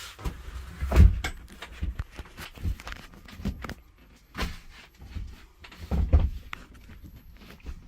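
Irregular knocks, bumps and rattles of hands working on an upper bunk's fittings, the loudest thumps about a second in and around six seconds in.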